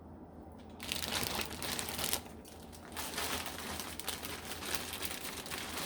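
Plastic food packaging crinkling and rustling as it is handled, starting about a second in and going on in patches.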